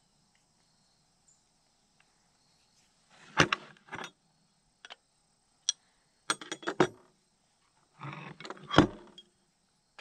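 Metal hand tools and fittings clinking and rattling in several short bursts, starting about three seconds in, as a propane regulator and its changeover valve are handled and fitted back onto their mounting bracket.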